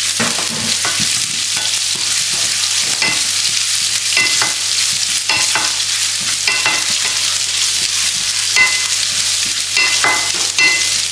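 Chopped garlic and onion sizzling in hot oil in a nonstick frying pan, stirred with a spatula that scrapes across the pan in short strokes every half second to a second, some with a slight squeak.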